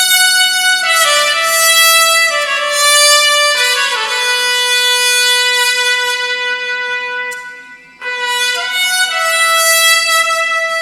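Background music: a sustained melody of held notes, fading out about eight seconds in and starting again abruptly.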